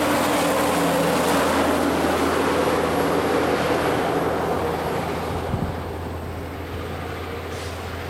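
Loaded logging truck and trailer passing at highway speed, its diesel engine and tyres loud at first, then fading as it pulls away. A brief thump sounds about five and a half seconds in.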